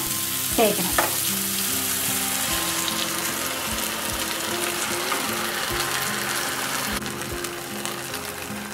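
Hot oil with mustard seeds and curry leaves sizzling in a frying pan as a thick ground coconut and green-chilli paste is poured in over apple pieces. The sizzle softens a little near the end.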